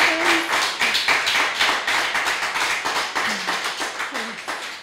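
Audience clapping and applauding at the end of a song, with a few voices calling out among the claps, fading out toward the end.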